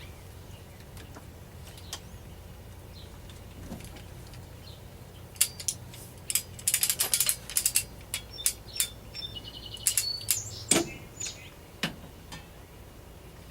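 Torque wrench ratchet clicking in quick bursts as it is worked to tighten a part on an AR-15 upper, starting about halfway through, with a few short high squeaks and a couple of knocks near the end. A low steady hum runs underneath.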